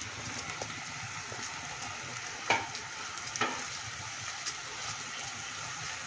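Cooked rice being stirred and turned in a hot nonstick pan of melted jaggery syrup with a silicone spatula: a steady sizzle with small scraping ticks, and two sharper knocks about a second apart midway through.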